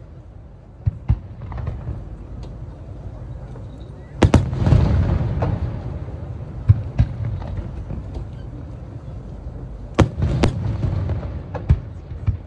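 Aerial fireworks shells bursting: sharp bangs, some single and some in quick pairs, over a low rolling rumble. The loudest cluster comes about four seconds in and trails off in a long rumble, and another group of bangs comes around ten seconds in.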